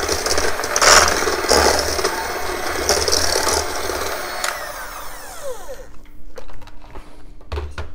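Electric hand mixer running, its beaters churning and rattling against a stainless steel bowl while creaming butter and sugar. About four and a half seconds in it is switched off and its whine falls away, followed by a few clicks and a knock.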